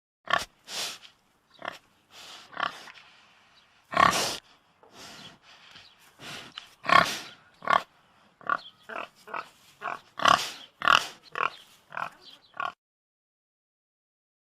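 Domestic pig grunting: a quick, irregular string of short grunts, some much louder than others, that stops about thirteen seconds in.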